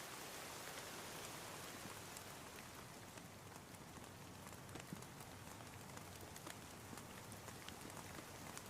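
Faint, steady rain: an even hiss with scattered ticks of individual drops.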